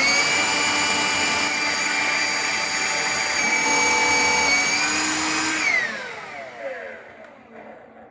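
Hoover Linx cordless stick vacuum switched on, its motor running with a steady high whine for about six seconds, then switched off and winding down with a falling whine. The owner says the motor sounds off and suspects it is burning out.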